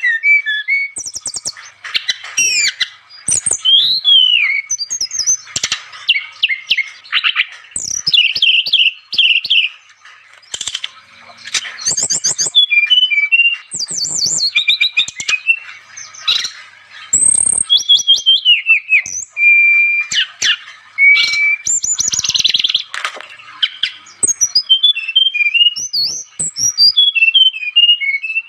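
Brown-chested jungle flycatcher (sikatan rimba dada coklat) singing vigorously: a varied run of quick, high whistles, slurs and trills in phrases a second or two long with short breaks between them.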